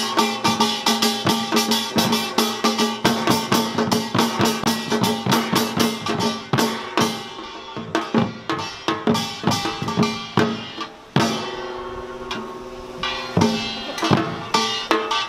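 Samul nori percussion ensemble playing a fast Samdo rhythm: the clatter of the kkwaenggwari small gong over janggu hourglass drum and buk barrel drums, with a ringing jing gong. About eleven seconds in the dense playing thins out, leaving ringing gong tones and sparser strokes that build up again near the end.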